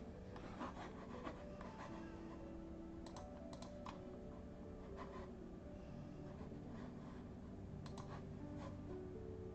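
Soft background music, with a few light clicks and taps scattered through it.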